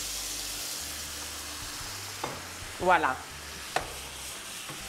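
Squid and shrimp sizzling in a hot frying pan just after a splash of wine goes in, a steady hiss that eases off slowly. Two light clicks come partway through.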